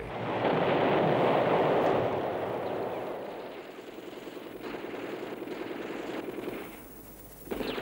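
Battle noise of dense gunfire. It is loudest for the first two seconds or so, then settles to a lower steady din with a few sharper reports, and drops away shortly before the end.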